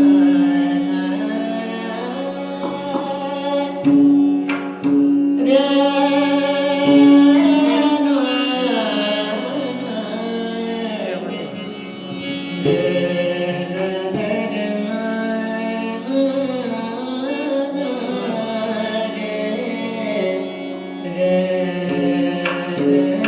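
Marathi devotional abhang singing: a male voice sings a wavering melody over a steady drone, with mridang strokes now and then.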